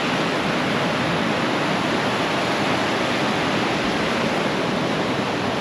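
Ocean surf washing through the shallows, a steady even rush of water.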